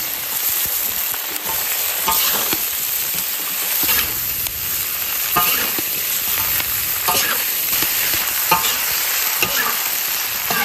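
Green chilies and pork slices sizzling in a large wok as a metal spatula stir-fries them. The spatula scrapes and clinks against the wok about once a second over the steady frying hiss.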